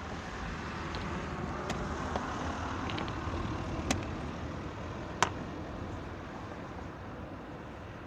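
A few sharp clicks of blitz chess being played, with pieces set down on the board and the digital chess clock's button pressed; the loudest comes about five seconds in. Under them runs a steady hum of street traffic.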